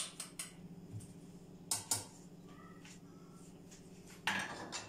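A few light clinks of a metal ladle and utensils against bowls and a plate, two close together about two seconds in, then a short scraping rustle near the end.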